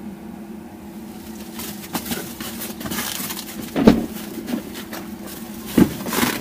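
A Tesla's cabin climate system running in dog mode, a steady low hum. From about a second and a half in, rustling and hiss build up over it, with two sharp heavy thumps about four and six seconds in.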